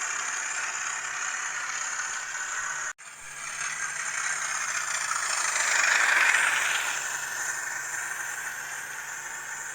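Hornby TTS sound decoder playing a Class 37 diesel engine sound through the tiny speaker of an N gauge model locomotive, mixed with the rattle of the model running along the track. The sound cuts out for an instant about three seconds in, then swells to its loudest around six seconds and eases off again.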